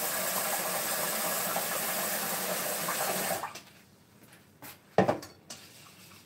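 Kitchen tap running water into a pot at the sink, shut off about three and a half seconds in. A sharp clunk comes about five seconds in as the pot is set down on the counter, with a couple of lighter knocks around it.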